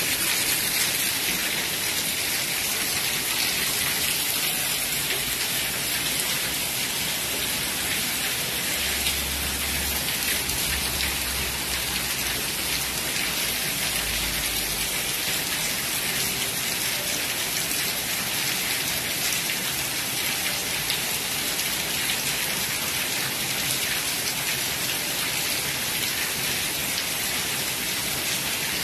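Heavy rain falling steadily on a concrete yard and walls: a dense, even hiss of many drops.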